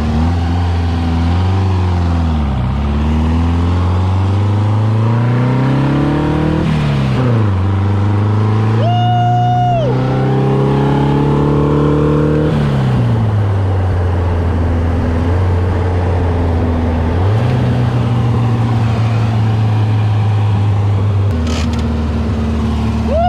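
Racing dune buggy's engine running and being driven, its revs climbing and falling back several times. A short high tone sounds once about nine seconds in.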